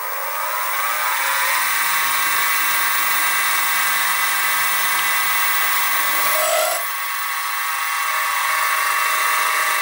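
Sieg SX2P mini-mill's spindle motor spinning up, its whine rising in pitch over the first second or so, then running steadily at speed while drilling a hole in the metal part.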